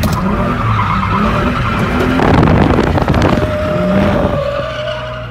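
Holden VU Commodore's V6 engine running hard, heard from inside the cabin, with the tyres squealing as the car slides through a corner; loudest about halfway through.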